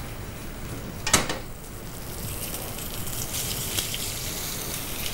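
Butter sizzling in a hot frying pan as a whole grouse is seared in it, a steady hiss that grows a little brighter from about two seconds in. A single sharp knock about a second in.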